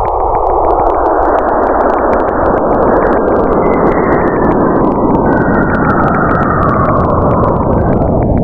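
Space sound presented as the sound of Saturn: planetary radio emissions made audible, heard as a loud, dense, rushing hiss with bands that drift slowly up and then down in pitch, flecked with crackles.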